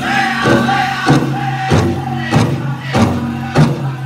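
Powwow drum group singing a chicken dance contest song in unison, high-pitched, over a large shared drum struck in a steady beat a little under two strikes a second.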